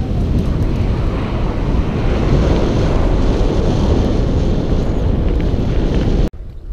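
Wind buffeting the microphone of a camera mounted on a moving mountain bike, mixed with the rumble of the Scott Voltage FR30's tyres rolling over a lane and gravel track. It cuts off abruptly near the end to a much fainter wind hiss.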